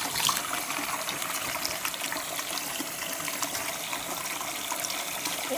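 Bathroom tap running steadily into a sink, with water splashing as hands work in a bowl of soapy water and rinse a wet dog under the stream.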